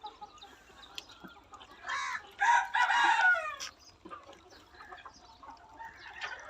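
A rooster crowing once, about two and a half seconds in, a call of about a second that slides down in pitch at its end, with hens clucking around it.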